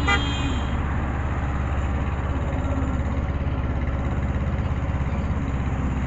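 Engine of a passenger vehicle running steadily with road noise, heard from inside the moving vehicle, with a low pulsing engine note. A brief high tone sounds right at the start.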